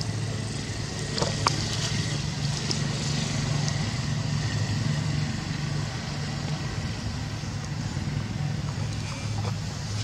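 A steady low hum like an engine running, with a couple of sharp clicks about a second and a half in.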